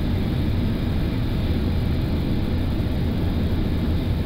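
Steady, low rumbling flight-deck noise of an Airbus A330-200 on final approach with the landing gear down and flaps full.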